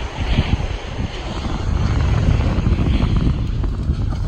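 Wind buffeting the microphone, an irregular low rumble that grows stronger around the middle.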